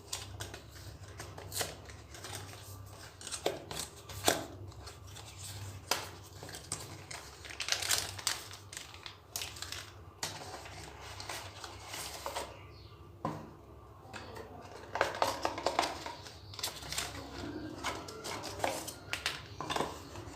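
Retail packaging of a Boya BY-M1 lavalier microphone being opened and handled: irregular clicks, scrapes and rustles with occasional tearing and crinkling.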